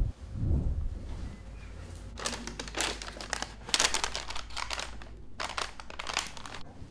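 Brown paper wrapping crinkling and rustling in three bursts, each about a second long, as a cloth garment is unwrapped and handled. A low thud or two sounds at the very start.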